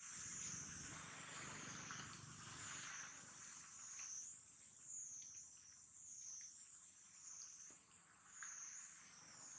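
Steady, high-pitched insect chorus that wavers slightly in pitch, with a few faint rustles.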